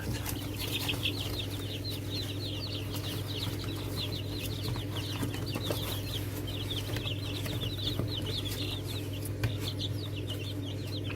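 A group of chicken chicks peeping without pause, many short, high, downward-falling cheeps overlapping, over a steady low hum.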